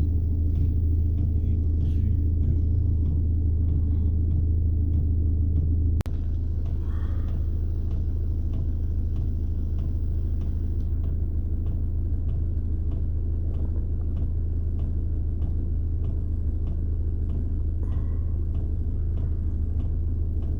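A steady low rumbling hum, with faint light strokes about twice a second as a knife blade is worked on a sharpening stone to finish the edge.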